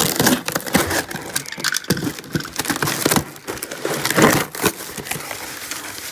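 Cardboard box and its bubble-wrap packing being pulled open and handled by hand: irregular crackling, crinkling and rustling, with a few sharper cracks.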